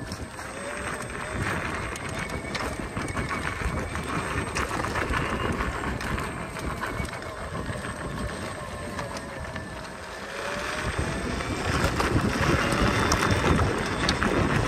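Electric unicycle riding over a gravel trail: a faint motor whine gently rising and falling in pitch with speed, under tyre crunch and wind on the microphone, all growing louder about three-quarters of the way through.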